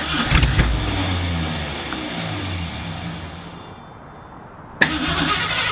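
1970 AMC AMX's V8 engine, not run in eleven years, firing up and running for about three seconds before dying away, then starting again a little under five seconds in.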